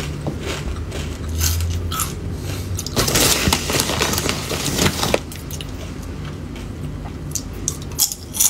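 A thin clear plastic snack bag crinkles and rustles as a hand rummages in it, loudest from about three to five seconds in. Scattered sharp clicks come before it, and a few crisp crunches of fried cracker are heard near the end.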